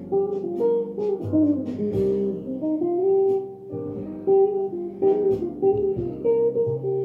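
Background guitar music: plucked notes ringing out one after another in a slow melodic line.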